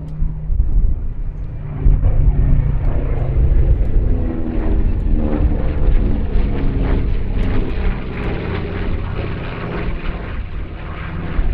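North American B-25J Mitchell's twin Wright R-2600 radial engines and propellers running loud on a display pass: a deep rumble with a propeller drone. It swells about two seconds in, eases off for a while, then builds again near the end.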